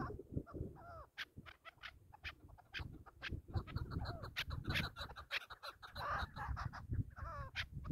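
Chukar partridge calling: a rapid, uneven run of short clucks, with a few brief wavering call notes about a second in and again near the end.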